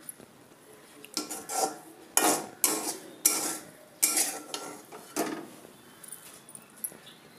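Metal spoon scraping a stainless steel plate as it stirs and spreads roasted vermicelli. There are about six rustling scrapes between about one and five and a half seconds in.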